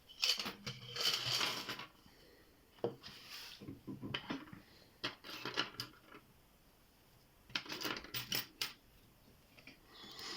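Small metal lock picks clinking and rattling as they are handled and sorted, in several separate bursts of jingling with short pauses between.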